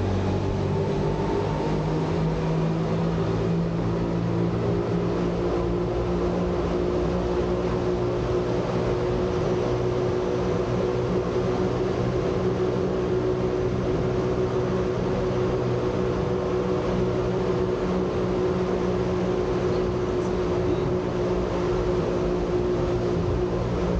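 Jungfrau cogwheel rack railway train running at steady speed: an even hum of several steady tones from its electric drive and rack gearing over constant running noise.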